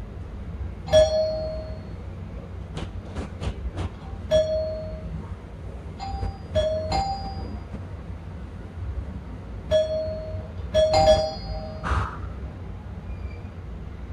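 Two-tone doorbell chime rung over and over, several ding-dongs in a row, each note ringing out for under a second. A quick run of four sharp taps comes about three seconds in.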